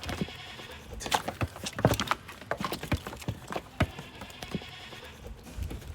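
Goat kids' hooves knocking and clattering irregularly on the feeding stand, with faint goat bleats.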